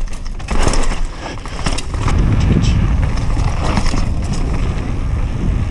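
Mountain bike rattling and clattering over a rocky dirt trail at speed. About two seconds in, a steady low rumble of wind buffeting the camera microphone takes over.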